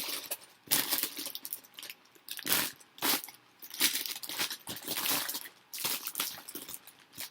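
Plastic parts bags of building bricks crinkling and rustling in irregular handfuls as they are shuffled through.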